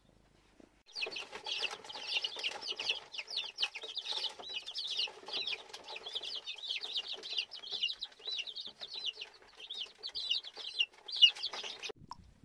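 A flock of young chickens peeping and chirping, many short high calls overlapping without a break. The calls start about a second in and stop just before the end.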